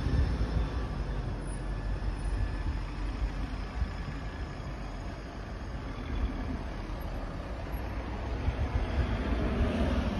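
Outdoor background noise: a low, uneven rumble with no distinct events.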